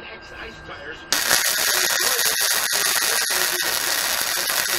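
Stick welder striking an arc about a second in, then a loud, steady crackling hiss as the electrode burns, with brief breaks in it.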